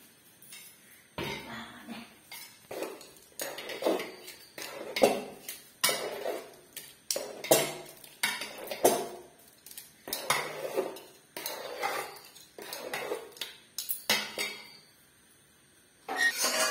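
A metal ladle scrapes and clinks against the inside of an aluminium pot as cooked khichuri is stirred, about two strokes a second. The stirring stops a little before the end.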